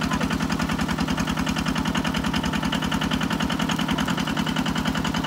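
Engine of a water pump running steadily with an even, rapid pulse while it pumps a pond dry.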